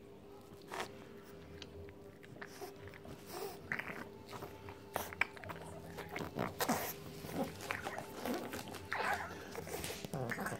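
A pug puppy licking, mouthing and chewing a treat: irregular short smacks and clicks that come thicker in the second half.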